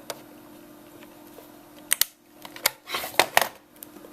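A few sharp plastic clicks and snips, then a short cluster of clicks and rustling as the Brother P-Touch 1080 label maker and its freshly printed label tape are handled.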